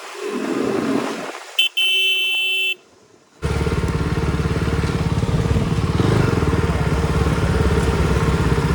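Traffic noise, then a vehicle horn honking for about a second. After a brief drop, a motorcycle engine starts up suddenly and runs steadily, the rider's KTM RC 390 single-cylinder, heard from on the bike.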